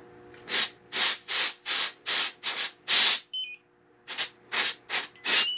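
Propane hissing from a 16 oz Coleman propane cylinder in short spurts as its valve is pressed open. There are about seven quick puffs, a short pause, then four more, releasing gas to test a handheld propane leak detector.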